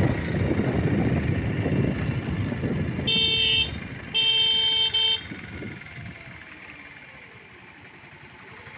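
A vehicle horn honks twice, a short toot and then a longer one about a second later, over wind rushing on the microphone and road noise that die down after the second honk.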